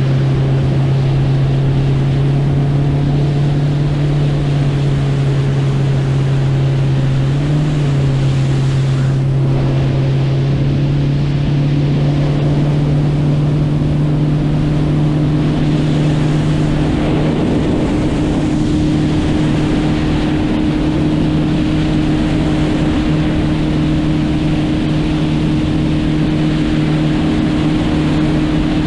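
Motorboat engine running steadily under way, with water and wind noise over it. Its drone steps up slightly in pitch about seven seconds in.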